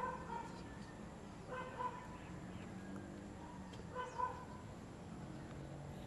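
A dog barking in the background, three short barks about two seconds apart, over a steady low hum.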